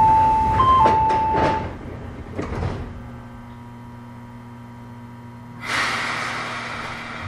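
A two-note door-closing chime alternating high and low on an Izukyu 8000 series train, with the sliding doors shutting in a few knocks; then a steady low hum, and about six seconds in a burst of air hiss from the train, typical of the brakes being released before departure.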